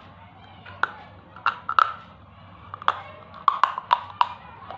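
Thick white Kangaroo-brand slate pencil being bitten and crunched between the teeth: a series of sharp, crisp cracks starting about a second in and coming faster after about three seconds.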